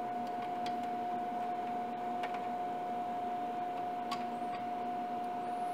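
Steady high-pitched whine from the powered-up electronics of a CNC control box (stepper drives and power supply), over a low hum, with a few faint clicks of wires and a cable connector being handled.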